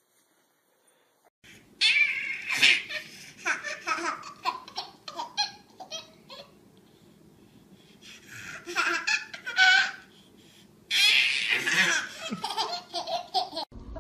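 Baby laughing hard in three long runs of belly laughs and giggles, set off by a basset hound licking at her face. The laughter starts about a second and a half in.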